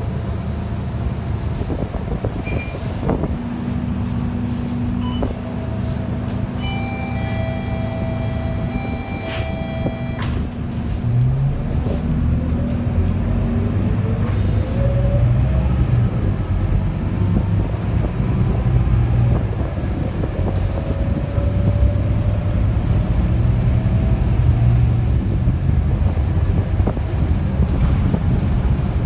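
Scania K230UB city bus heard from inside the cabin. Its engine idles at first, and an electronic tone sounds for about three seconds around a quarter of the way in. The bus then pulls away, the engine note growing louder and rising in pitch several times as the automatic gearbox shifts up.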